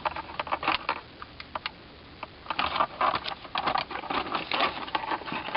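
Irregular plastic clicking and rattling as zip ties are fed through the holes of plastic radiation-shield plates, with a quieter pause a second or two in.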